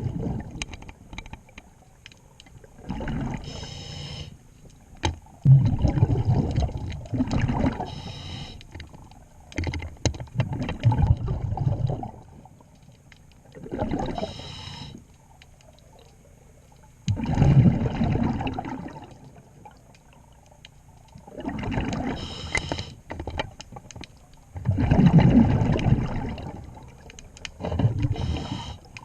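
Scuba diver breathing through a regulator underwater: a short hiss on each inhale, then a gurgling rush of exhaled bubbles, repeating about every three to four seconds.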